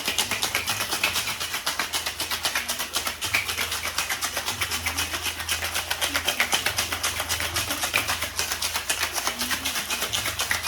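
Ice rattling inside a cocktail shaker, shaken hard in a fast, even rhythm of several strokes a second.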